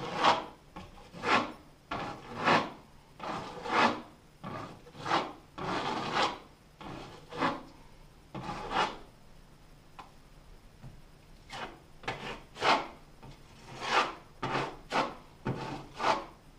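Metal putty knife scraping drywall joint compound onto a wall in repeated short strokes, about one a second, with a brief lull about ten seconds in.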